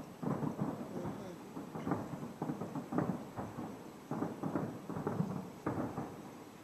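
Distant fireworks bursting: a rapid, irregular series of bangs.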